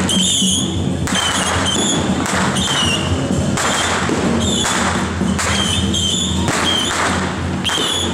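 Temple-procession percussion: drum and cymbal or gong strikes crashing about once or twice a second, with a shrill wavering melody above them and a steady low hum underneath.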